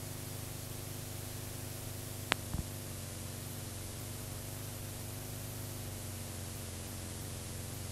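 Steady static hiss with a low electrical hum underneath and no programme sound, the noise floor of a blank stretch of the recording. One sharp click comes a little over two seconds in, followed at once by a brief low knock.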